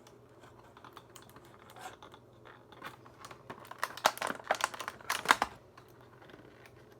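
Light plastic clicks and taps from hands handling a toy Rubik's Cube and its fitted outfit, irregular at first and busier between about four and five and a half seconds in.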